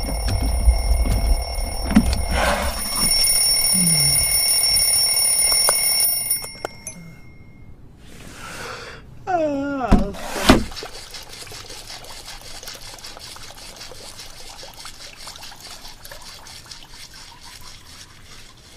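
Alarm clock ringing with several steady high tones that cut off about six to eight seconds in. Around ten seconds in, a brief loud sound slides down in pitch, followed by faint hiss.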